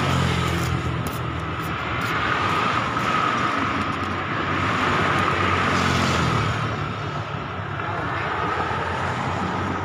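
Steady motor noise with a low engine hum, swelling slightly around the middle.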